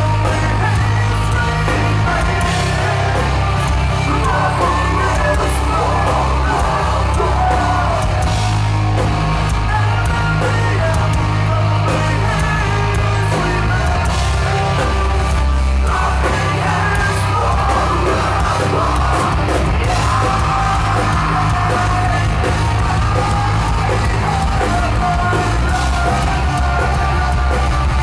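Metalcore band playing live: electric guitars, bass and drums with a vocalist screaming into the microphone, heard from within the audience.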